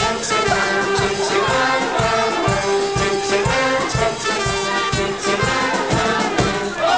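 Brass music led by trumpets, played over a steady beat.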